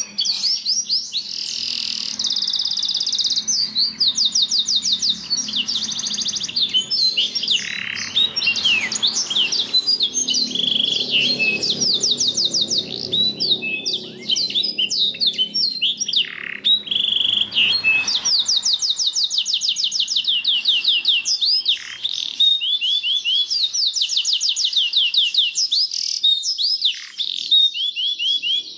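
Domestic canary singing a long, almost unbroken song of fast rolling trills, each a rapid run of repeated high notes, mixed with quick sweeping whistles and short pauses.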